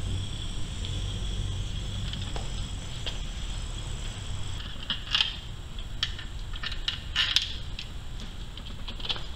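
Metal clinks and clicks of a socket and extension against the throttle body and intake plenum fittings: a handful of sharp clinks in the second half, over a steady low hum.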